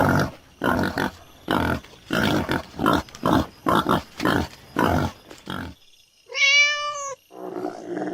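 A run of short, rough animal grunts, about two a second, then a single cat meow that rises and falls in pitch. A deep, rough animal call begins shortly after the meow and is still going at the end.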